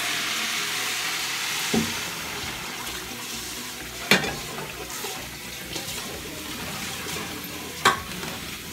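Octopus cooking broth poured into a hot saucepan of sautéed octopus and rice, hissing and sizzling as it hits the pan, then simmering while a wooden spoon stirs, with three sharp knocks against the pan.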